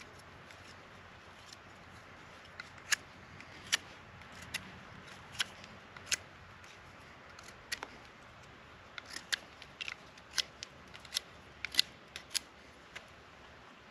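A knife shaving a wooden stick in short strokes: irregular sharp snicks, coming more often in the second half.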